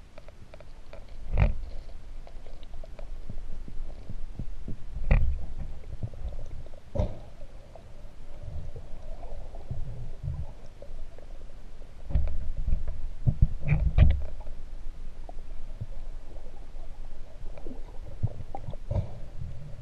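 Muffled underwater sound from a camera held just below the surface: low, uneven rumbling of moving water, broken by about six sharp clicks or knocks.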